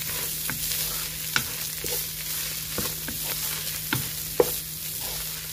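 Minced lamb and onion filling sizzling in a pan as it is stirred, with scattered scrapes and knocks of the utensil against the pan, one sharper knock about four seconds in.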